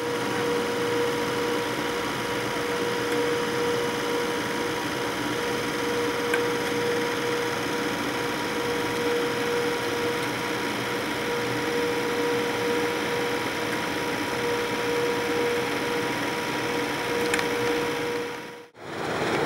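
British Rail Class 92 electric locomotive's electrical equipment humming: a steady whine at one unchanging pitch over a constant hiss.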